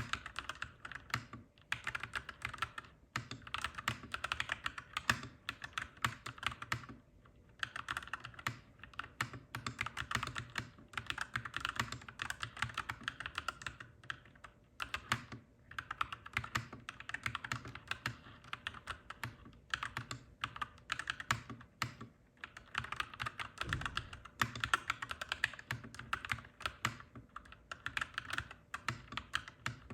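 Clacky mechanical keyboard being typed on in fast, steady runs of keystrokes, broken every few seconds by brief pauses.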